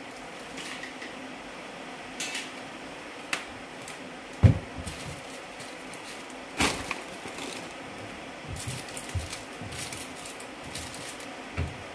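Household things being handled and moved about a plastic storage box: scattered knocks and rustles, with a sharp knock about four and a half seconds in and another about two seconds later, then a run of lighter clicks and rustles near the end.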